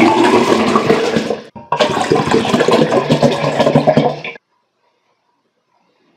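A pink vitamin drink poured fast from two upturned plastic bottles at once into a tall glass, splashing loudly. The flow breaks off briefly about a second and a half in, resumes, and stops abruptly about four seconds in, leaving silence.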